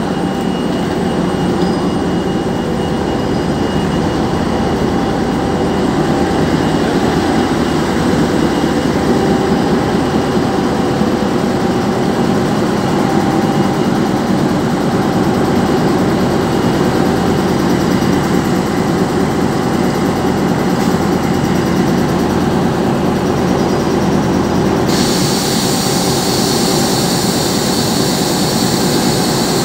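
Czech class 754 'Nurek' diesel-electric locomotive standing at the platform with its twelve-cylinder diesel running, a steady loud drone. About 25 s in, a higher hiss suddenly joins the engine sound.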